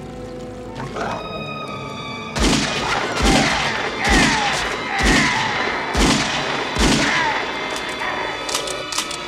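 Six gunshots fired about a second apart, each with a deep boom, over dramatic film-score music.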